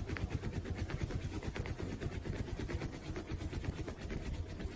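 Cat purring loudly close to the microphone: a fast, even rumble that keeps up a steady rhythm.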